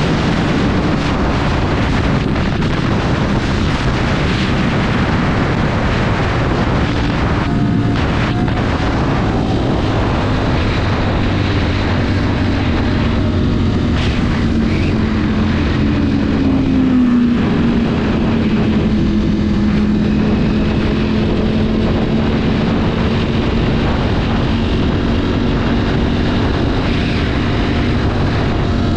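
Sport motorcycle heard on board at highway speed: the engine runs steadily under a heavy rush of wind noise, its note sliding down a little about halfway through and then holding steady.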